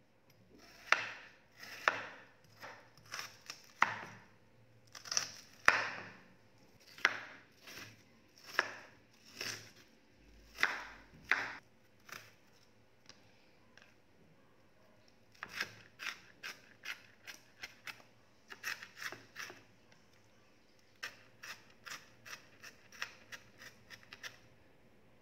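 Chef's knife cutting an onion on a wooden cutting board: each stroke a crisp cut through the onion ending in a knock on the board. The first cuts come singly about once a second; after a short pause the dicing goes faster, several strokes a second in short runs.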